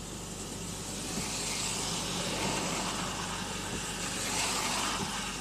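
Tyres hissing on a wet road as a car passes close by in the oncoming lane, heard from inside a car. The hiss swells over a few seconds, peaks about four seconds in, then eases, over the steady low hum of the car's own engine.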